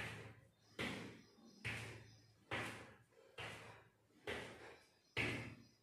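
Bare feet stamping on a hard floor while stepping in place, a steady rhythm of thuds a little more than once a second, each fading off quickly: seven in all.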